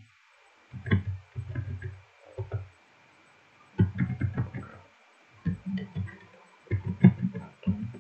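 Typing on a computer keyboard in short runs of keystrokes with pauses between, the keys coming through as dull thumps.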